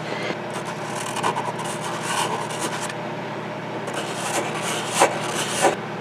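Hands and a pen rubbing and scraping against a wall panel and a plastic outlet back plate, with a couple of light knocks near the end.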